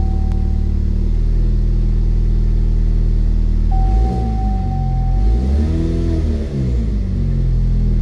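Car engine running at idle and revved up briefly about halfway through, its pitch rising and falling back. A thin steady whine comes and goes twice over the engine sound.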